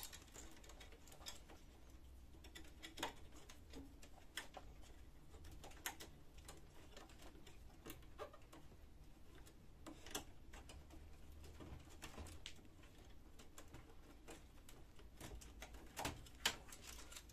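Faint, scattered clicks and taps of plastic cable connectors and wires being handled at a laser printer's circuit board, a click every second or two over a low hum.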